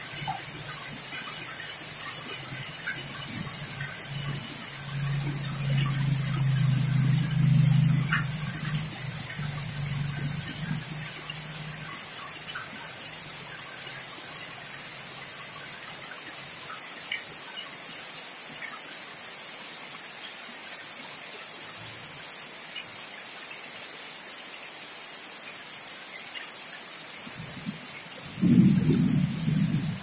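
Heavy rain falling steadily on a yard and trees, a constant hiss. A low rumble of thunder swells a few seconds in and fades after about ten seconds, and a shorter, louder rumble comes near the end.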